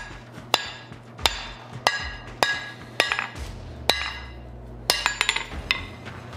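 Hand hammer striking red-hot mild steel on the anvil face, rounding the bar's edges: six sharp ringing blows about one every 0.6 s. About five seconds in comes a quick clatter of lighter metal clinks.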